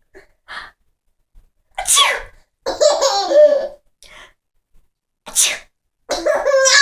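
A woman sneezing twice, about three seconds apart, each sneeze followed by a baby's laughing.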